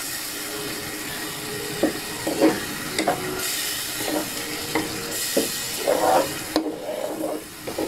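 A ladle stirring pork pieces in simmering coconut milk in a pot, scraping against the pot several times, over a steady sizzling hiss that drops away near the end.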